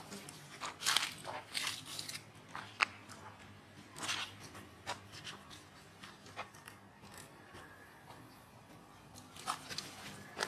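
Irregular crackles and scuffing clicks from long-tailed macaques moving about over dry leaf litter and stone, the sharpest clicks coming about a second in and around four seconds in, with a quieter stretch before a few more near the end.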